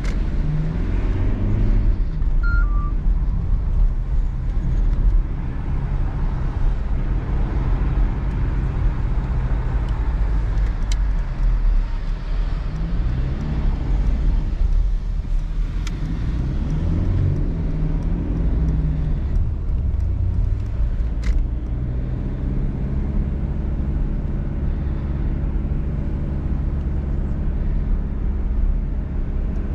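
Mercedes-Benz E220d's four-cylinder diesel engine pulling on the road with the roof down, mixed with tyre and wind noise. Its note rises and falls several times, then holds steady for the last several seconds as the car cruises.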